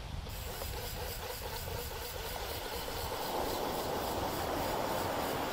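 Steady wind and surf noise on the beach, growing a little louder about halfway through. A faint quick ticking runs through it, in keeping with a conventional fishing reel being cranked.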